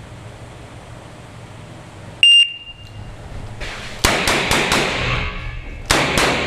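Electronic shot-timer start beep, one short high tone, then revolver shots fired in quick succession with echo: a fast string starting about a second and a half after the beep, a brief pause, then a second group near the end.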